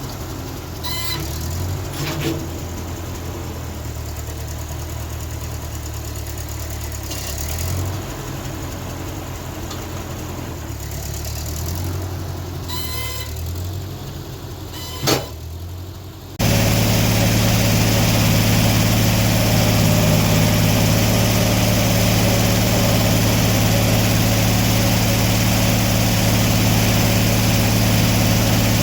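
Portable sawmill's engine running at low speed, its pitch shifting a little, with a few sharp clicks. About halfway through it suddenly jumps to a loud, steady high-speed run, as when the saw is brought up to cutting speed.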